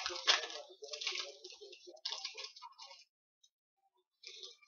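Foil wrappers of hockey card packs being torn open and crinkled by hand, in irregular rustling bursts. There is a soft knock at the start, and a pause of about a second before the rustling resumes near the end.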